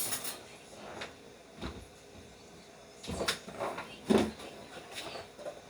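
Kitchen handling noises: a few short knocks and clunks, the loudest about three and four seconds in, like a cupboard or container being opened and shut.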